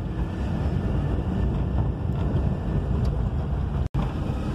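Car engine and road noise heard from inside the cabin while driving, a steady low rumble. A split-second dropout to silence comes near the end.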